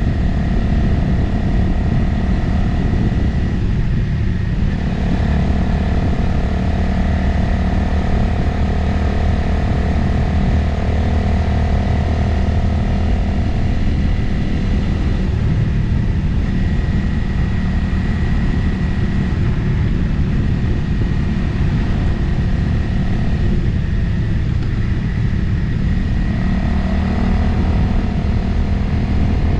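Motorcycle engine running steadily on the move, with wind noise on an onboard microphone. The engine note shifts pitch a few times as speed or gear changes.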